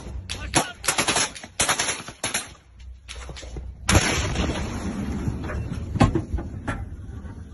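Rapid bursts of automatic gunfire, then about four seconds in a loud explosion whose blast noise carries on for several seconds, with another sharp bang about two seconds after it.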